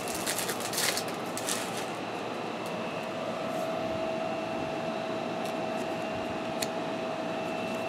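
Steady background hum with a constant faint whine, over which stiff trading cards tick and slide softly a few times as they are shuffled by hand.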